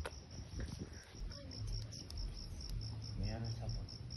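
Crickets chirping: a steady, evenly pulsed high-pitched trill. A brief faint voice comes in a little over three seconds in.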